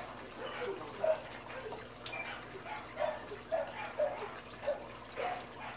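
Water being poured from a bottle through a funnel, trickling and gurgling in a quick run of short gurgles.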